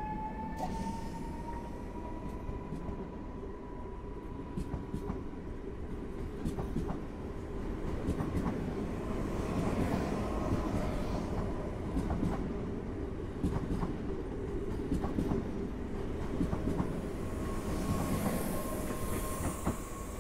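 A Newag Impuls electric multiple unit passing at speed over the points. Its motors whine, rising in pitch at first and then holding steady, over a constant rumble, and the wheels click repeatedly as they cross rail joints and switches. A rushing hiss swells near the end.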